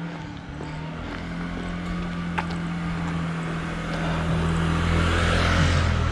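A motor vehicle drawing near and passing, its noise swelling over the last couple of seconds with a falling pitch at the end, over a steady low engine hum.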